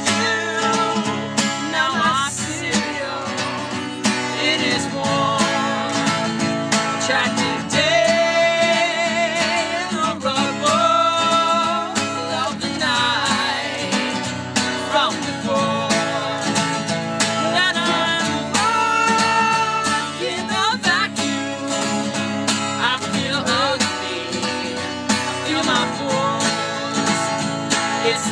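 Music: acoustic guitars strummed and picked in a folk song, with a sung melody over them.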